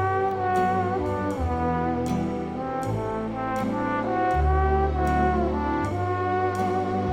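Background music: sustained brass chords that change every second or two, over light percussion.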